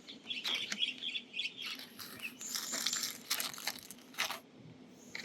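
Plastic push-in trim clip being worked into the hole in a plastic engine bay trim cover: a run of short clicks and scraping, with a squeaky plastic-on-plastic rub in the first second or so.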